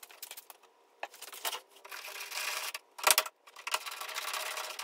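Scattered sharp clicks and knocks with stretches of rustling, the loudest knock about three seconds in: handling noise around a pickup truck's cab.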